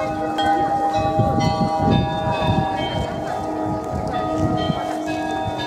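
Tower clock bells chiming a melody as the apostle figures come out: notes struck one after another, each ringing on over the next.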